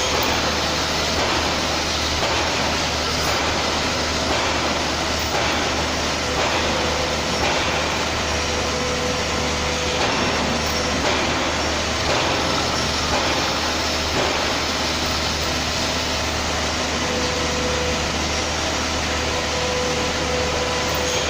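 CNC turning centre running, a steady machine noise with a low hum under it and a thin whine that fades in and out a few times.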